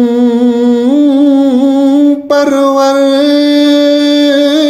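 A man chanting a devotional Persian poem, an istighasa, in long drawn-out held notes that waver slightly in pitch. About two seconds in there is a brief break for breath before the next long note.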